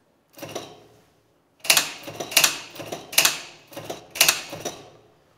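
Old high-voltage DC mechanical relays in a telescope's original control panel clacking as they switch: one clack, then after about a second a quick run of about seven clacks, each dying away briefly.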